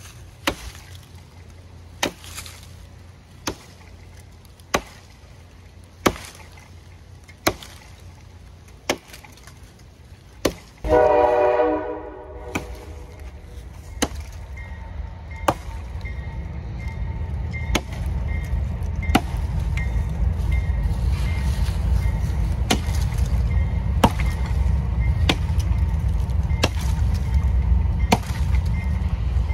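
Axe chopping into a standing tree trunk, one sharp chop about every second and a half. About eleven seconds in, a loud pitched sound lasts about a second and a half. After it a low steady rumble rises under the chops.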